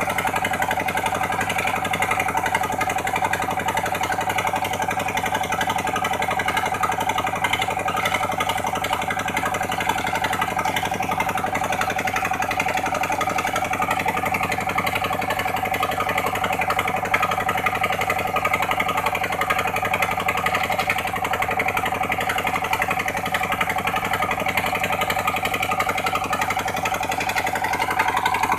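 Engine of a sand-suction dredge pump running steadily at constant speed, a continuous hum with a dense mechanical rattle over it.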